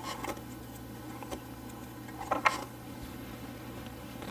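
Scattered light clicks and taps from hands working at an upright vacuum's brush roll, picking fuzz off it, with one sharper click about two and a half seconds in.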